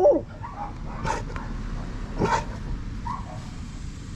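Dog barking: a drawn-out bay falls away at the very start, then two sharp single barks come about a second apart.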